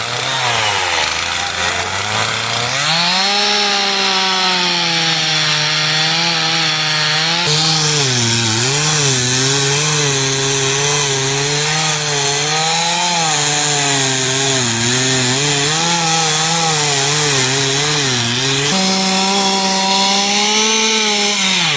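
Two-stroke chainsaw revving up and cutting into a block of wood while carving a bear's legs. Its pitch wavers, dipping as the chain bogs under load and recovering, then it revs freely near the end before dropping back.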